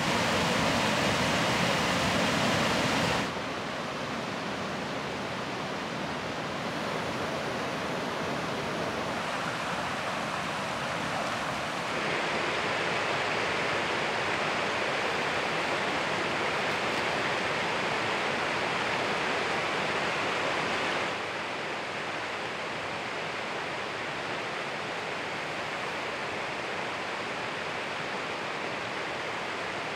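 Waterfall water rushing over sandstone ledges: a steady rush that is loudest for the first three seconds, then drops abruptly to a softer, more distant rush that shifts in level a couple more times.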